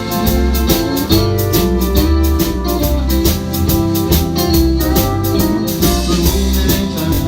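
A live country band playing the instrumental intro of a song: guitar and keyboard over a drum kit keeping a steady beat.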